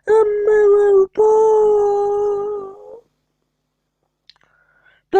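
A voice singing two long, steady held notes without words, the second about two seconds long, then falling silent.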